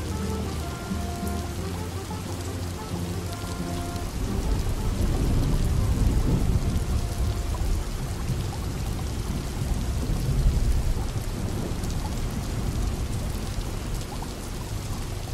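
Steady rain pattering against windows. A long low rumble of distant thunder builds about four seconds in, swells twice and slowly eases.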